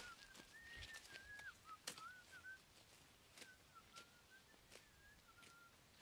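A faint, thin whistled call, wavering up and down around one pitch in short broken phrases, with scattered light clicks through it.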